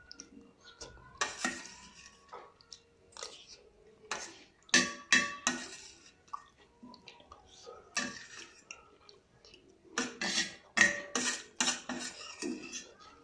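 Metal spoon scraping and clinking against a stainless steel plate as the last bits of food are scooped up. The sharp clicks come in irregular clusters, and a few ring briefly.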